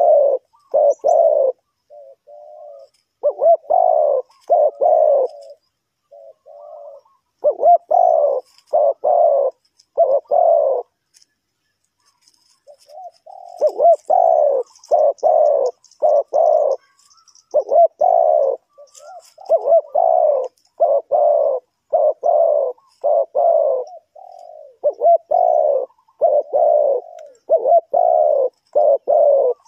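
Spotted dove cooing: repeated phrases of three or four low coos, with a pause of about two seconds near the middle. Faint high chirps of small birds sound behind it.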